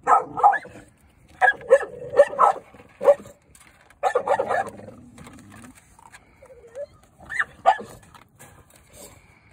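Dog barking repeatedly in short barks that come in clusters, with a quieter stretch a little past halfway.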